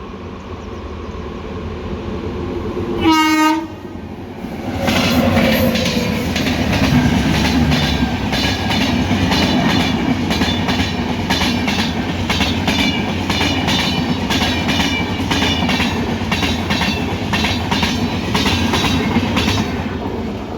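A train approaches with a rising rumble, then its locomotive horn sounds one short blast. The train then passes close by at speed, with a loud steady rumble and a rhythmic clickety-clack of wheels over the rail joints as the coaches go by.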